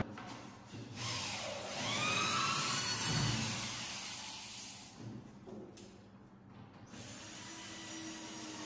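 Corded electric drill driving screws into plywood flooring, its whine rising and falling in pitch, then running steadier and lower near the end.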